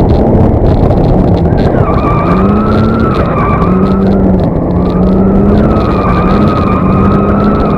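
Two drift cars sliding in tandem: engines revving hard and wavering in pitch, with tyres squealing from about two seconds in.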